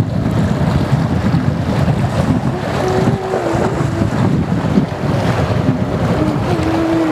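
Strong wind buffeting the microphone over waves washing against a harbour breakwater, with a fishing boat's engine running under it.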